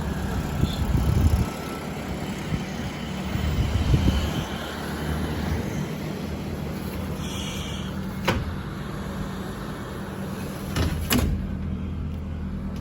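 Breeze coming through an open window, buffeting the microphone in gusts, over a steady low mechanical hum; two sharp clicks later on.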